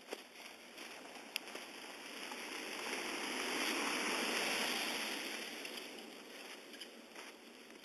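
A car passing on a snow-covered road, its tyre noise in the snow and slush swelling to a peak about four seconds in and then fading away.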